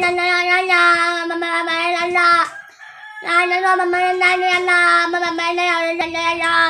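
A boy singing long sustained notes without words: a held note that ends about two and a half seconds in, then after a short breath another long note on the same steady pitch, wavering slightly toward its end.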